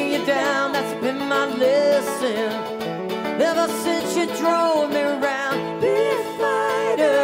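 Live folk-rock band playing an instrumental stretch of a song: strummed mandolin and other plucked strings, with a wavering melody line on top.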